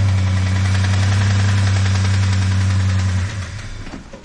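Jeep 4.0-litre inline-six running just after start-up, with a knock that the mechanic blames on a cracked piston rather than a rod bearing. Its level falls away about three seconds in.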